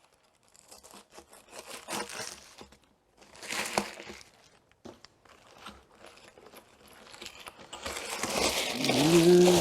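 A mailed parcel being opened by hand: packaging crinkling and rustling, with a short tearing burst a few seconds in and a longer, louder rip building near the end.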